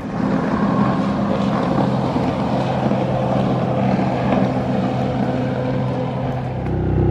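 Personal watercraft engines running as the jet skis speed across the water. Near the end a louder, steadier, lower engine hum takes over.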